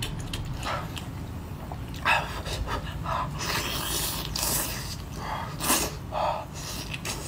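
Close-up eating sounds: short bursts of slurping and sucking as meat is drawn from a large chili-sauce-dipped prawn, with breathy puffs between them.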